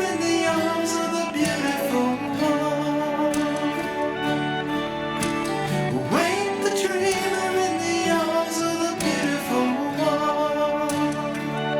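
Music with plucked string instruments and held notes, with a rising swoop about six seconds in.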